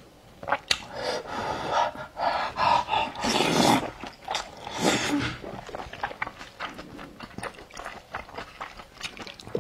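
Close-up eating sounds: loud sucking slurps of noodles and sauce-coated meat with chewing and many small wet mouth clicks, the loudest slurp about three and a half seconds in.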